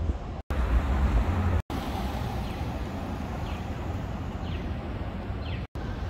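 City street traffic: cars driving past with steady road noise and a low rumble, strongest in the first second or so. The sound cuts out briefly three times.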